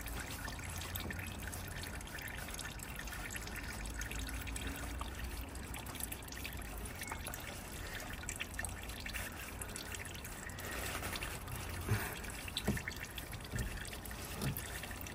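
Engine oil trickling steadily into a drain pan as the oil filter is loosened and drips. A few light knocks near the end.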